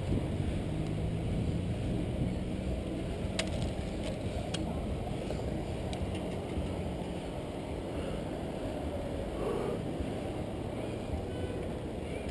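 Steady rumble of wind and road noise on a handlebar-mounted camera as a bicycle rides along a road beside passing car traffic. There are a few light clicks a few seconds in.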